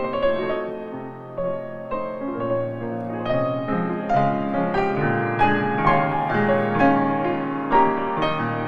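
Background piano music: notes struck one after another in a gentle melody.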